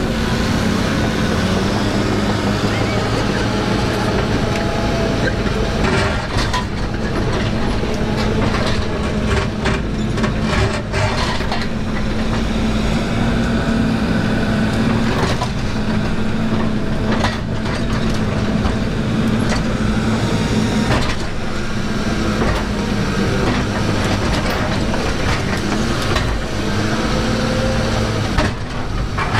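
Volvo 140 excavator's diesel engine running steadily under working load, its pitch dipping and recovering a little as the load changes, with scattered knocks and clatters of rock and wood being moved.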